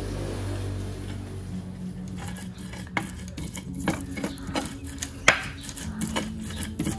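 Stone pestle grinding fresh chillies in a stone mortar (Indonesian cobek and ulekan): irregular knocking and scraping strokes from about two seconds in, one sharper knock a little after five seconds. Before the strokes, a steady low hum.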